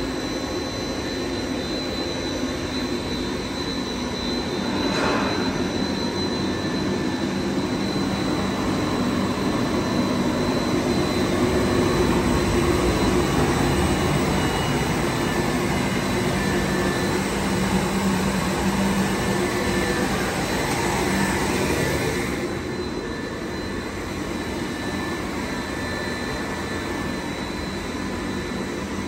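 Jensen industrial flatwork roll ironer running: a steady mechanical whir of its motors and turning roll, with a thin high whine held throughout. It grows louder a few seconds in and eases off again about three-quarters of the way through.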